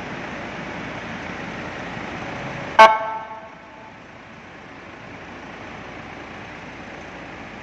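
A single short horn blast from a custom Whelen-style siren, about three seconds in, ringing off quickly, over a steady hiss that drops after it.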